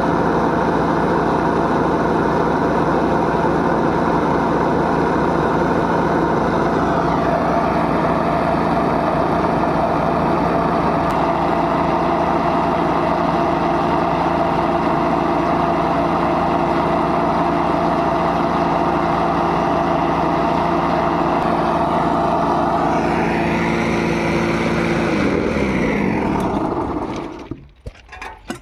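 Engine-driven machine running steadily, then shutting off and winding down about 26 seconds in, its pitch falling as it stops.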